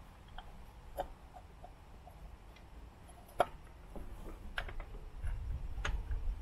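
Scattered light metallic clicks and taps as the 19 mm bolt for an MGB's oil filter housing is worked by hand, its threads not yet catching; the sharpest click comes about three and a half seconds in.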